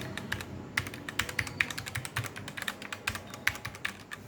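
Typing on a Redragon K530 Draconic wireless mechanical keyboard with red switches: an irregular run of key presses, several per second, thinning out near the end. Not very noisy; the keys click smoothly.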